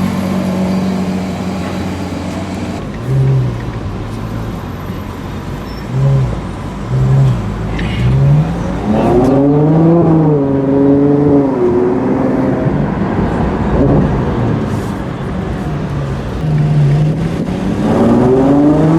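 Ferrari 812 GTS's naturally aspirated V12 idling, then given four short throttle blips, then pulling away with the revs rising and falling several times and climbing again near the end.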